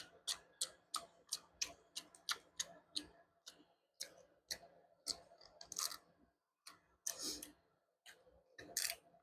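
Snow crab shells being cracked and picked apart by hand. A quick run of sharp clicks, about three a second, gives way to scattered crackles as the meat is worked out.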